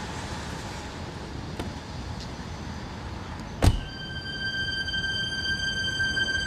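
Low steady background, then a single car door shutting with a thump about three and a half seconds in. Right after it, a held high tone with overtones sets in and rings on steadily.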